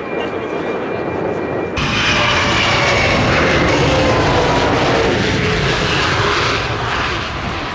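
Sukhoi Su-35S fighter's twin turbofan jet engines, loud as the jet rolls past along the runway. The noise comes in suddenly about two seconds in, with whining tones that fall steadily in pitch as it passes.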